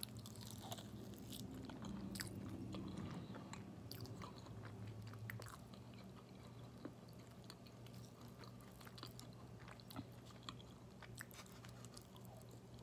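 A person biting into and chewing a sauced chicken wing: faint chewing heard as scattered small mouth clicks.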